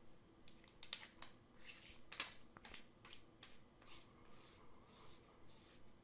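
Faint handling sounds of a flashlight's tail cap being threaded onto its body on smooth threads: soft scraping with a few light ticks.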